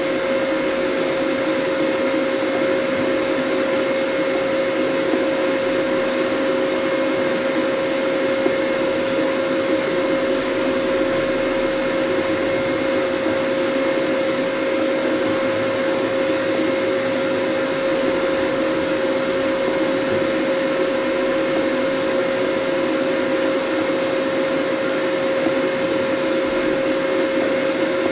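Steady whir of a running machine fan, even throughout, with a constant mid-pitched hum over it.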